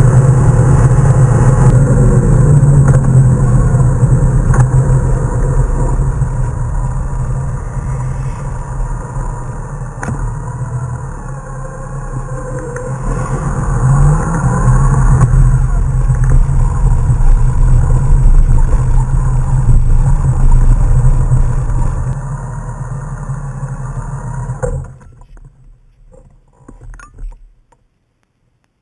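Honda Gold Wing motorcycle heard from the rider's seat, engine and wind noise running at highway speed. The sound dips as the bike slows and rises again in pitch as it accelerates about 14 s in. It eases off again and cuts out abruptly about 25 s in as the bike comes to a stop, leaving near silence with a few faint sounds.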